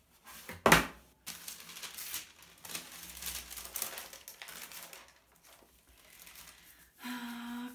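Tissue paper rustling and crinkling as it is handled inside a cardboard shoebox, after one sharp knock of the cardboard box about a second in.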